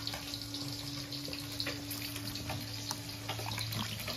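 Hands swishing and rubbing cut potato wedges in a steel bowl of water, with light splashing and many small sloshes. A steady low hum runs underneath.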